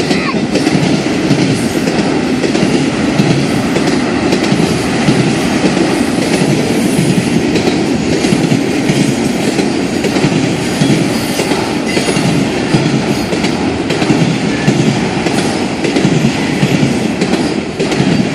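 Freight train cars rolling steadily past: a continuous rumble of steel wheels on the rails, with clickety-clack over the rail joints.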